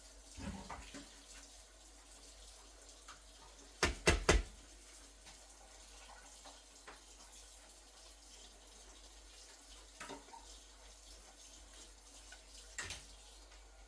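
Light knocks and clatters of kitchen items being handled, with three sharp ones in quick succession about four seconds in and a few fainter ones later. There is no motor running.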